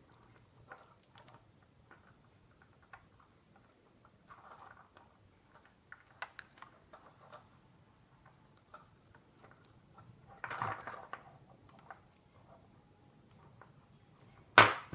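Faint, scattered light clicks and taps of chunky bubblegum beads and waxed cord being handled as the beads are threaded and knotted, with a brief rustle about ten seconds in and one sharp knock near the end.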